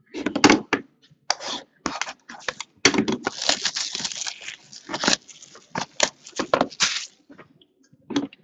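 Cardboard trading-card boxes handled on a table: an irregular run of scrapes, knocks and rustles as the boxes are shifted and set down.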